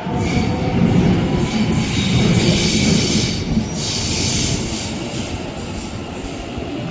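Electric suburban passenger train moving along the rails, with rumbling wheels and high wheel squeal. Loudest in the first few seconds, then easing off.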